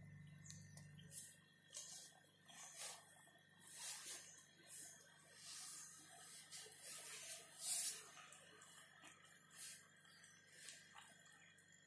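Faint, irregular soft rustles and scuffles, one or two a second, of a mother cat and her kittens tussling and nursing on a bare floor, the strongest one near the end.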